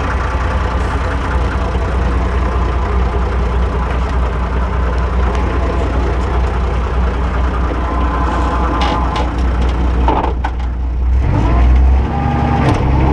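Tractor engine running steadily while pulling a chisel plow. About three-quarters of the way through it dips briefly, then its note shifts and swells.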